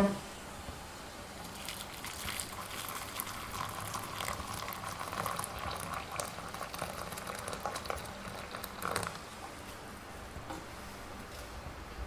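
A kettle coming back to the boil: water rumbling and crackling, building after a second or so and easing near the end.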